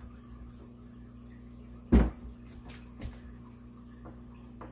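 A wooden nightstand set down onto a laminate countertop as paper is slipped under its legs: one sharp knock about two seconds in, then a lighter one a second later.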